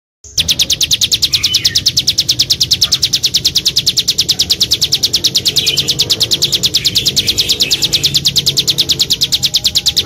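Small songbird giving a rapid, machine-even trill of sharp, high notes, about eight a second, held without a break for many seconds, as in a 'tembakan' burst used for training cage birds. A fainter, lower warbling runs underneath.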